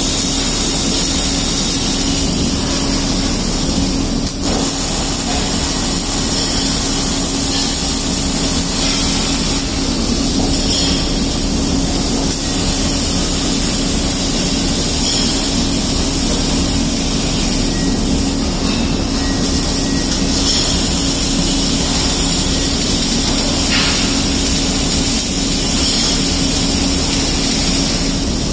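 Robotic wire-fed arc welding: a steady, loud hiss of welding arcs over a constant low hum of the welding cell's machinery.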